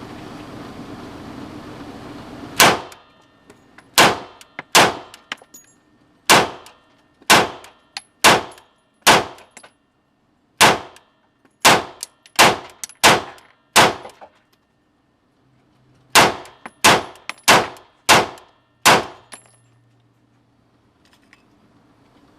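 CZ P-09 pistol fired about seventeen times in slow, steady single shots, each with a short ringing tail. There is a pause of about two seconds after the twelfth shot.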